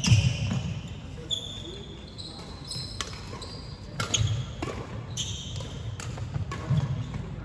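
Badminton rackets hitting shuttlecocks in repeated sharp cracks, every half second to a second, mixed with short high squeaks of sports shoes on a wooden hall floor.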